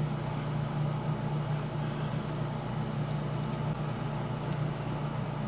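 Steady low hum with a few faint, light ticks of small parts being handled.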